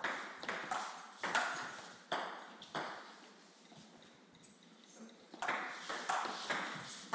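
Table tennis rally: a plastic ping-pong ball clicking off paddles and the tabletop in quick succession, each click echoing briefly in the room. The clicks stop for a couple of seconds around the middle, then a new rally starts.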